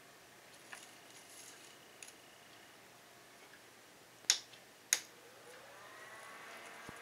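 Two sharp clicks of the control button on a JACESS neck twin fan, about two-thirds of a second apart. The twin fan motors then spin up with a rising whine that settles into a steady hum.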